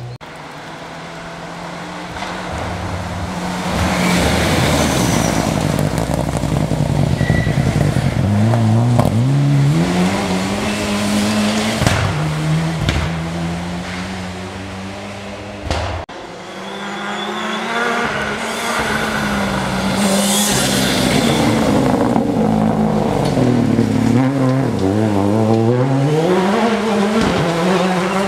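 Rally cars at speed on a forest stage, engines revving hard and dropping back in pitch again and again through gear changes as they approach and pass, one car after another with a sudden break about halfway.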